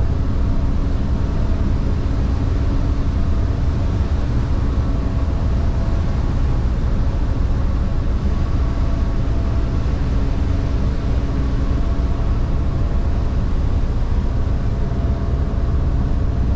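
A car ferry's diesel engines drone steadily, a deep rumble with faint steady tones through it, heard from the ship's deck.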